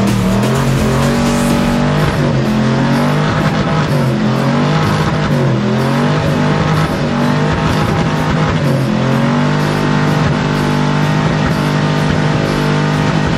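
Pickup truck's engine revving hard through a burnout, the revs dropping and climbing again several times as the rear tyres spin.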